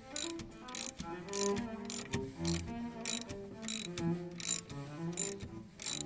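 Socket ratchet clicking in quick uneven runs as it is swung back and forth on a brake caliper bolt, with solo cello music underneath.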